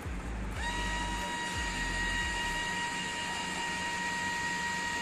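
Bosch GO Gen 2 cordless screwdriver's small 3.6 V motor driving a screw, starting about half a second in and running with a steady, even whine.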